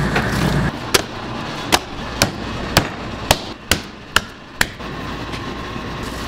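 Eight sharp knocks, spaced unevenly about half a second apart, over a steady background noise.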